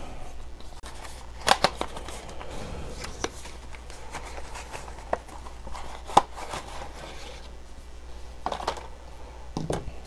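A boxed 120 mm case fan being handled and unpacked: scattered sharp clicks and knocks of cardboard and plastic, with light rustling between them, over a steady low hum.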